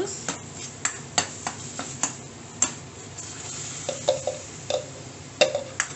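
Steel spoon stirring and scraping a frying onion-spice masala in a stainless steel kadai, with a string of sharp clinks of metal on metal over a light sizzle. Ground tomatoes are being added to the pan.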